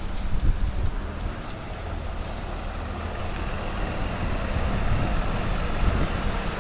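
A fire engine's diesel engine running steadily: a low, even rumble.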